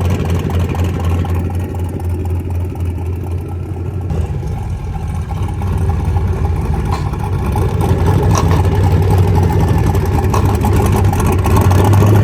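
Turbocharged LS V8 engine running steadily at idle, a loud, even low hum.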